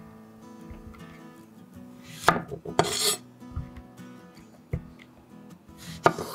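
A chef's knife cutting zucchini on a bamboo cutting board. There is one longer slice of about a second a little after two seconds in, a few light knocks, and a sharp knife strike on the board near the end, over soft acoustic guitar music.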